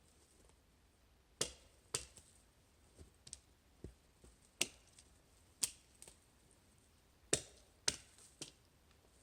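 Axe blows into spruce wood: a series of sharp chops at uneven spacing, roughly one a second, some hard and some lighter.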